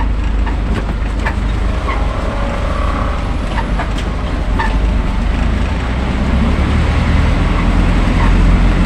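Truck engine running while driving, with road noise heard from inside the cab; the low rumble swells a little near the end.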